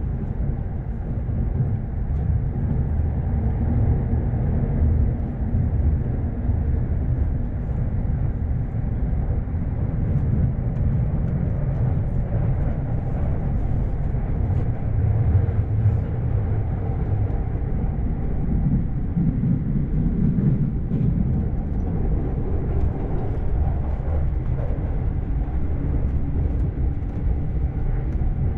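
Running noise of a commuter electric train heard from inside the passenger car: a steady low rumble of wheels on rail.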